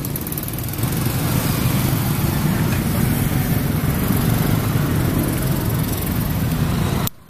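Steady low rumble of motor vehicle engines, as of motorcycles running on a street close by. It cuts off abruptly near the end.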